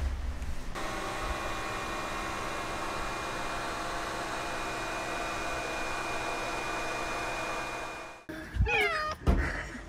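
A steady background of held tones for most of the stretch, then a cat meows once near the end, its pitch rising and falling.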